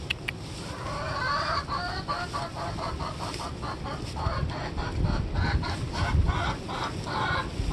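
Chicken clucking: a long run of short clucks, about three a second.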